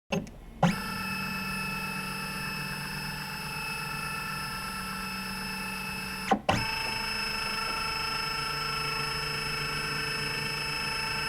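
Epson flatbed scanner's scan-head motor whining steadily as the carriage travels, starting with a couple of clicks. About six seconds in there is a short clunk and pause, after which the whine picks up again at a slightly changed pitch.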